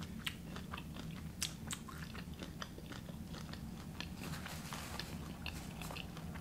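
Close-miked chewing of food: many small, irregular wet mouth clicks and light crunches, over a faint steady low hum.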